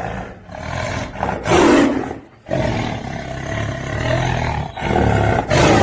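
Tiger roaring and growling in several long, rough calls that swell and dip, loudest about a second and a half in and again near the end.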